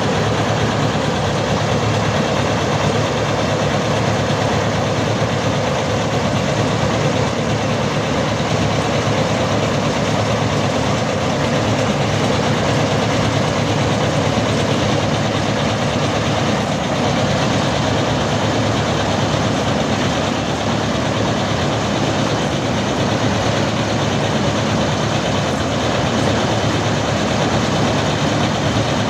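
Heavy diesel machine engine running steadily at an even speed, with no revving or change.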